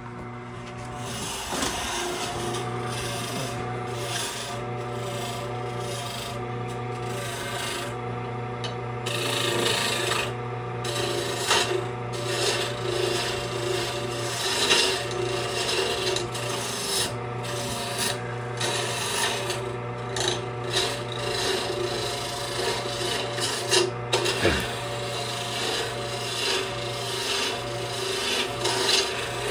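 Central Machinery mini wood lathe running with a steady motor hum while a hand-held turning tool cuts the spinning wooden blank, scraping unevenly as shavings come off. The cutting grows louder and more broken-up about a third of the way in.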